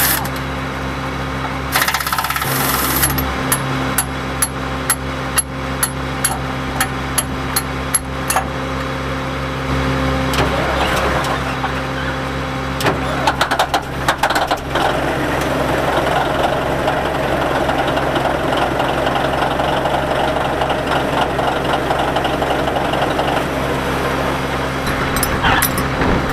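A diesel engine idles steadily throughout. About two seconds in comes a short hiss, then a run of sharp metallic clicks, about two a second, for some six seconds, and a denser cluster of clicks and knocks around the middle, as the lift ram is worked loose from its mount.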